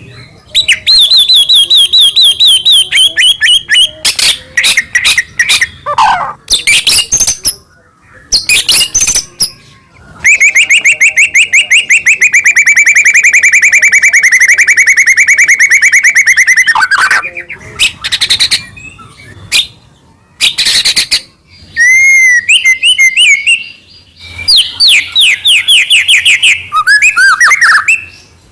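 White-rumped shama (murai batu) singing loudly and energetically, in phrases of rapid repeated trills and sliding whistles, including one long rattling trill of about seven seconds.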